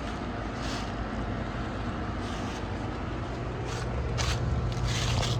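Outdoor heat pump unit running: a steady low hum from the compressor under the rush of the condenser fan, with a few short hissy bursts, growing a little louder about four seconds in.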